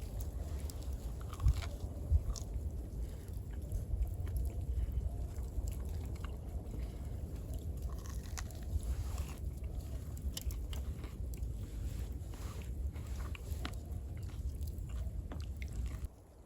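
A person biting and chewing food close to the microphone, with scattered crunchy clicks over a steady low rumble. The sound cuts off abruptly near the end.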